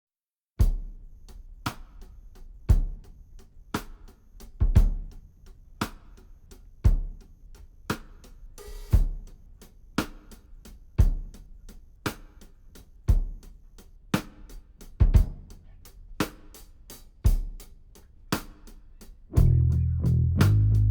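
Background music starting after a brief silence: a drum kit beat with a kick and snare about once a second and light cymbal ticks between. Bass and guitar come in near the end.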